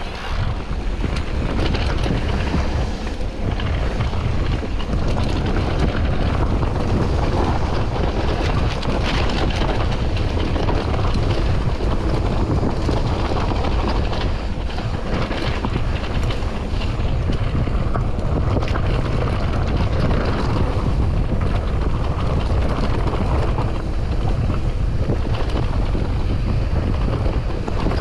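Wind buffeting the microphone of a mountain bike descending at speed, with the tyres running over the trail and the bike rattling over bumps, many small knocks in a constant loud rush.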